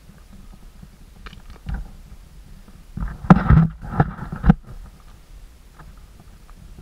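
Footsteps on a trail of loose stone fragments: faint crunches, then a cluster of loud knocks and scrapes from about three to four and a half seconds in.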